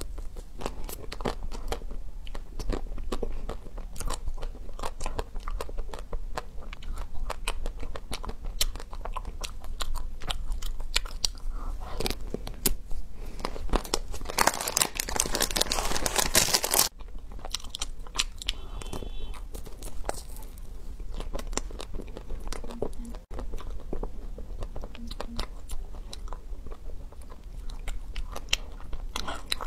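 Close-miked biting and chewing of chocolate-coated ice cream bars: the hard chocolate shell cracks and crunches in many sharp snaps. About halfway through there is a louder, denser run of crunching that cuts off suddenly.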